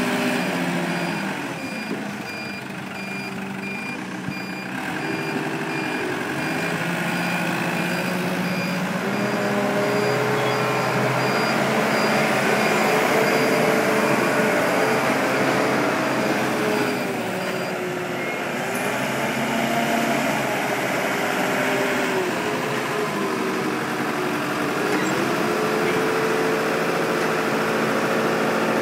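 Gradall 534D-9 telehandler's engine running, its revs rising and falling as it carries and places a load. A backup alarm beeps repeatedly over the first half and stops about 17 seconds in.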